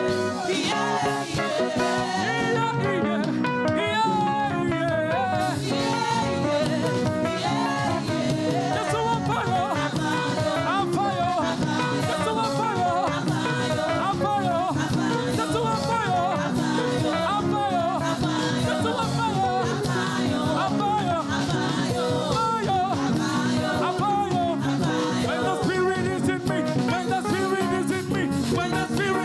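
Live church choir and band performing an upbeat praise song, with sung vocal lines over the steady accompaniment.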